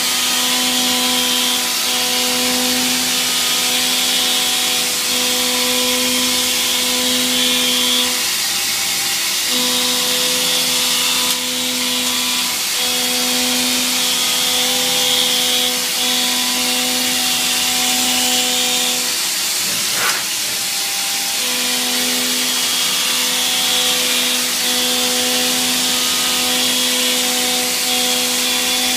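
YCM FV56A CNC vertical machining centre milling: a steady pitched cutting whine over a loud hiss. The whine drops out briefly about eight seconds in and again for a couple of seconds around twenty seconds in, with a sharp click between.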